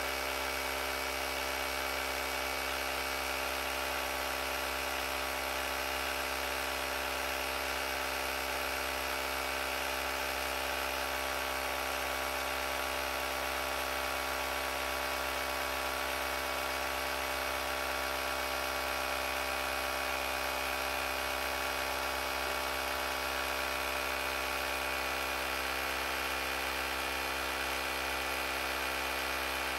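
AUTOOMMO cordless tire inflator's small electric compressor running at a steady pitch, pumping up a flat motorcycle front tire while the pressure climbs.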